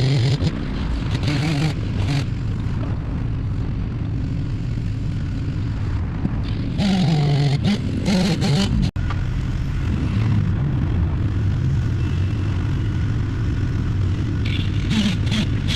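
Engine-powered machinery running, its pitch rising and falling as it revs up and down, with an abrupt cut about nine seconds in.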